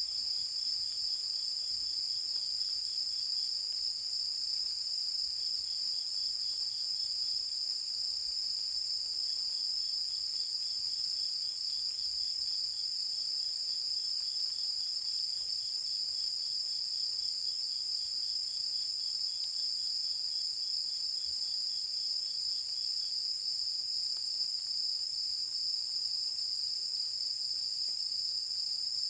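Night insect chorus: a steady, high-pitched continuous trill from many insects, with a fainter second insect chirping in rapid pulsed runs that start and stop several times.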